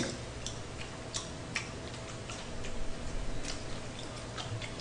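Light, irregular clicks and taps of chopsticks against food and disposable containers during a meal, roughly one or two a second.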